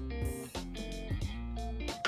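Background music: a light instrumental with plucked guitar notes over a bass line.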